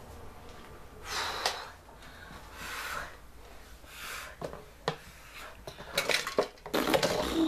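Empty plastic drinks bottle crinkling and crackling as it is handled, in several short bursts. Near the end come a cluster of knocks and clatters as it is set down among plastic cups and a glass jar.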